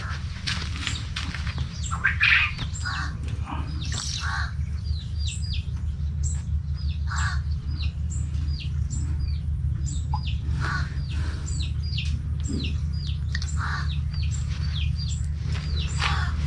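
A small bird chirping over and over, short high chirps about two to three a second, with a steady low hum underneath and occasional brief rustling sounds.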